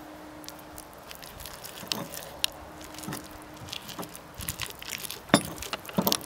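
Pestle grinding in a stone mortar, working burdock leaf, soaked oat flakes and honey into a paste: irregular knocks and scrapes of the pestle against the stone, the sharpest about five and six seconds in.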